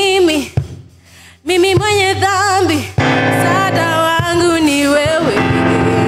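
Live praise-and-worship music: a singer holds wavering sung notes, with a short break about half a second in. A fuller instrumental accompaniment comes in about three seconds in.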